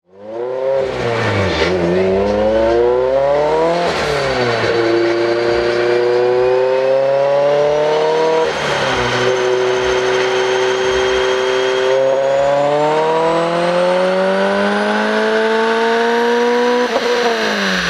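Turbocharged Subaru BRZ's flat-four engine on a chassis dyno. It gives a couple of quick revs, runs steadily at two held speeds, then makes a long full-throttle pull whose pitch climbs steadily for about four seconds before a lift-off near the end. A thin high whine rises along with the engine during the pull.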